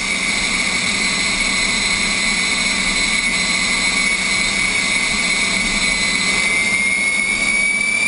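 Turbine engine running with a steady high whine over a rushing roar; the whine dips slightly, then starts to rise near the end.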